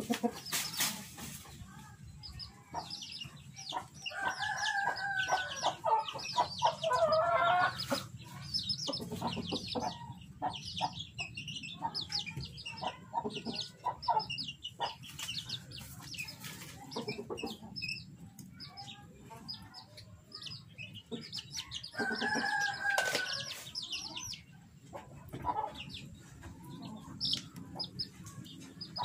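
Chickens calling: two longer, drawn-out clucking calls, one about four seconds in and another about 22 seconds in, over a run of quick high chirps, with a burst of wing flapping near the start.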